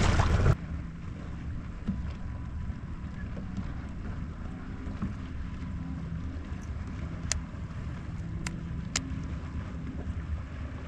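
Low steady hum of the kayak's electric trolling motor, with water moving against the hull. It starts with half a second of loud rushing wind and water that cuts off abruptly, and three sharp clicks come in the second half.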